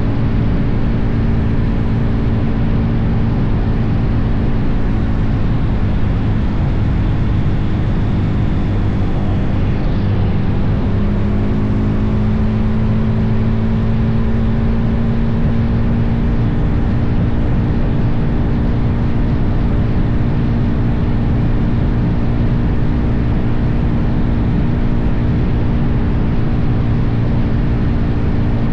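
Suzuki DR-Z400's single-cylinder four-stroke engine running steadily at cruising speed, under heavy wind noise on the microphone. The engine note shifts slightly about ten seconds in, then holds steady again.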